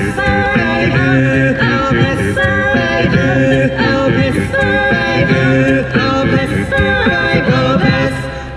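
Music from an outdoor park show, with several voices singing together and the notes changing every half second or so.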